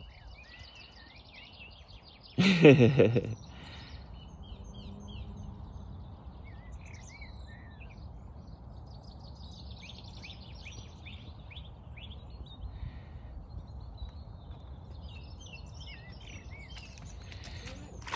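Wild birds chirping and singing throughout over a low outdoor rumble. About two and a half seconds in, one loud pitched call lasts just under a second.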